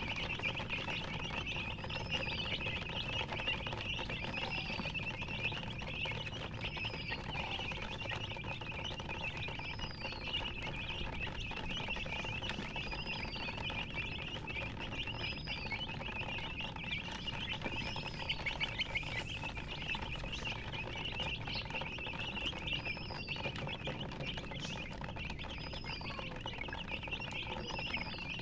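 Many chicks peeping together in a continuous chorus, with one higher, arched chirp repeating about every two seconds above it.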